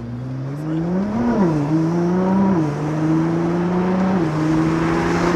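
Car engine accelerating through the gears: its note climbs and drops sharply at each upshift, about a second in, at about two and a half seconds and again near four seconds, then holds steady.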